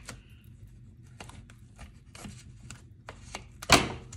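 Mochi packaging rustling and crinkling as it is opened by hand, in short scattered bursts, with one louder crackle about three and a half seconds in.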